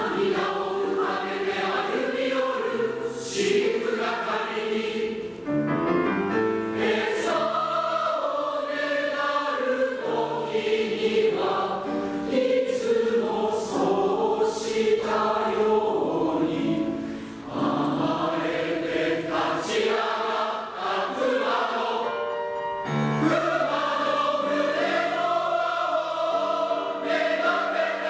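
Large mixed choir of men and women singing a choral piece. It comes in at full strength at the very start and carries on in long sung phrases, with short breaks between them.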